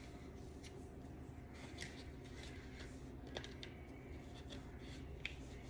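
Faint scratchy rustles and a few small clicks of hair being worked with a microloc interlocking tool, over a steady low room hum.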